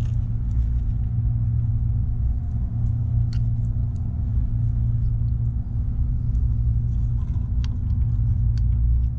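Steady low hum in the background, with a few faint light clicks from metal parts being handled.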